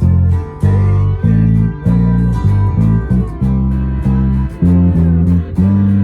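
Live band playing a song, with bass guitar notes and guitar over a steady beat.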